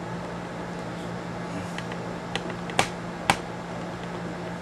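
Steady low hum of room equipment, with a few sharp clicks about halfway through, the two loudest about half a second apart.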